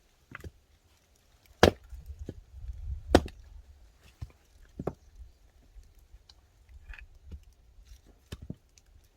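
Axe splitting firewood: two loud sharp strikes about a second and a half apart, then several lighter wooden knocks.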